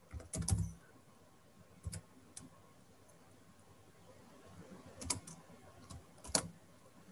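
Computer keyboard keystrokes: a short quick run of typing at the start, then single key presses spaced a second or more apart.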